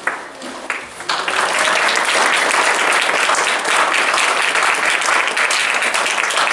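Congregation applauding. A few scattered claps come first, then full applause about a second in.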